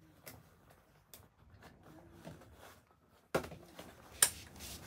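Fabric rustling and light handling of plastic parts as a bassinet's fabric seat is fitted to its frame, with a sharp click about four seconds in as a fitting goes into place.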